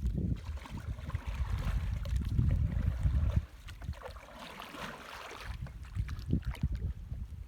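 Water sloshing and splashing around a small boat, with wind buffeting the microphone in a low rumble that dies down about three and a half seconds in.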